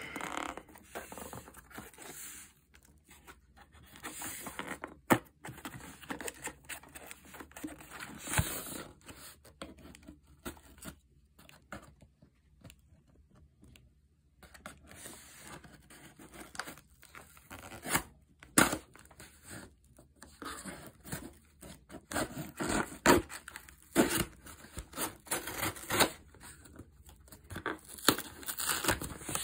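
Large cardboard shipping box being opened and handled: tearing, scraping and rustling of cardboard and tape in irregular bursts, with sharp knocks here and there and a quieter pause about halfway.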